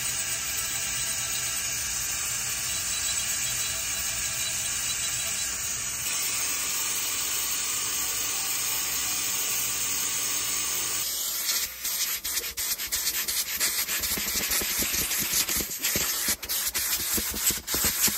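Dental lab handpiece grinding a gypsum stone model: a steady motor whine with a grinding hiss. About eleven seconds in it gives way to quick scratchy brush strokes as stone dust is brushed off cloth.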